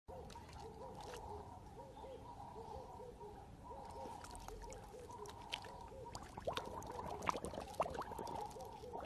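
Dog lapping and splashing pool water as it drinks, with drips falling from its muzzle; the lapping clicks and splashes come in the second half. Under it runs a faint, steady, wavering hum.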